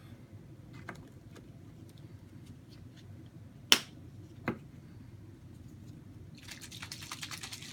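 Sharp clicks and taps of small objects being handled over a low steady background hum, two of them louder near the middle, then a fast run of clicks near the end.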